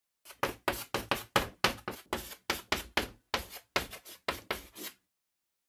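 Chalk-on-blackboard writing sound effect: a quick run of sharp taps, about four a second, that stops about a second before the end.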